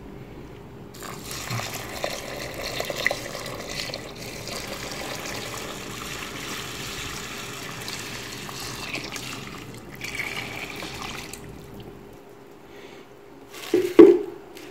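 Water poured from a plastic container into a plastic bowl of wheat grain to soak the seed, splashing steadily for about ten seconds and then stopping. A short loud sound near the end.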